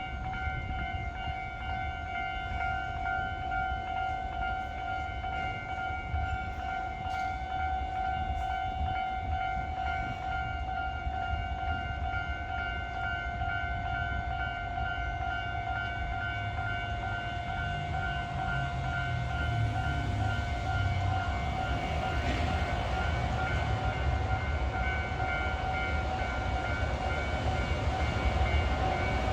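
Japanese railway level-crossing warning bell ringing steadily and repetitively. A low rumble of an approaching train builds underneath from about halfway through.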